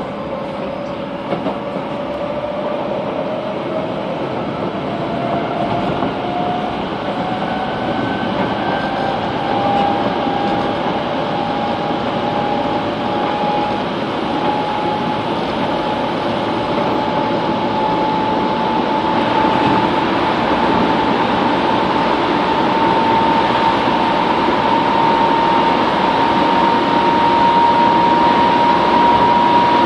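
Kobe City Subway 3000 series train (Hitachi GTO VVVF inverter) under way, its drive whine climbing slowly and steadily in pitch as the train gathers speed. Beneath it runs steady rolling noise that grows louder toward the end.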